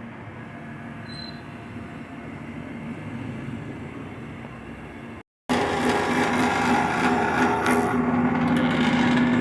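Wood lathe running with a turning tool cutting the spinning wood, a steady rubbing noise over the motor's hum. It breaks off briefly about five seconds in and comes back louder.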